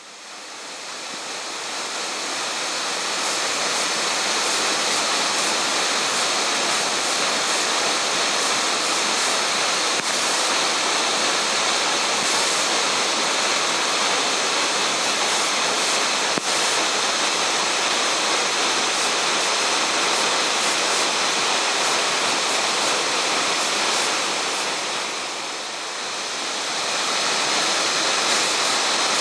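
Waterfall pouring, a steady full rush of falling water that swells in over the first few seconds and softens briefly near the end before returning.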